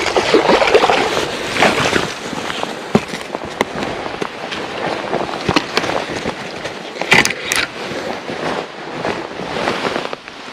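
Water splashing and sloshing, with scattered sharp clicks and knocks throughout.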